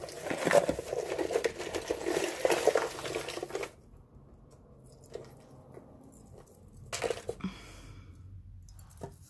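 Hands rummaging through a box of loose costume jewelry: metal chains and pieces rustling and clinking for about four seconds, then a shorter burst of handling about seven seconds in.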